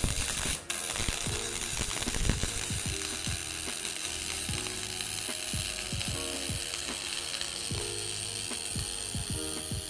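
MIG welding arc on 2 mm aluminium sheet with AlMg5 filler wire, from an EWM Picomig 180 Puls welder: a steady crackling buzz. It breaks off for an instant just after the start, then runs on until it stops at the very end.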